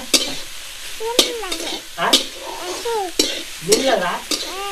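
Metal spatula scraping and stirring koinar flowers and onions frying in an aluminium kadhai, with sharp strokes about once a second over a steady sizzle.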